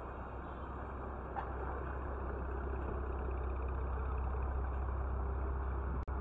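City street traffic: a steady rumble of passing vehicles that grows louder about two seconds in. There is a brief click about a second in and a momentary cut in the sound near the end.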